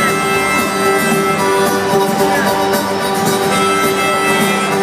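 Live country-style music: strummed acoustic guitar with a harmonica holding long steady notes, an instrumental passage without singing.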